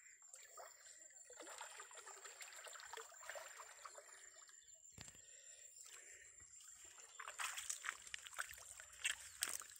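River water sloshing and trickling around someone wading waist-deep. A run of sharper splashes at the surface comes in the last two or three seconds.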